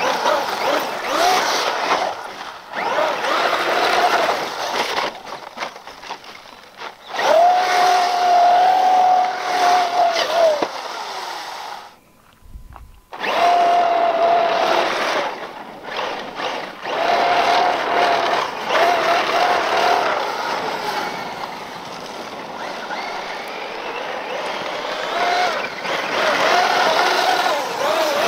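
Traxxas brushless electric RC truck driven hard on loose desert dirt: a high motor whine that holds steady through full-throttle runs and drops away and comes back between them, over the hiss of tires throwing dirt. The sound cuts out briefly near the middle.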